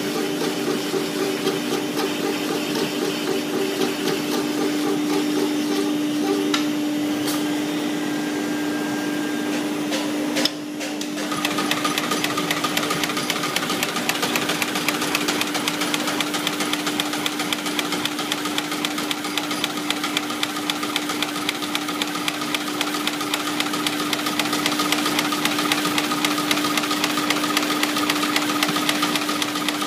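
CNC brush tufting machine running: a fast, even clatter of strokes over a steady hum, with a brief break about ten seconds in before the clatter resumes.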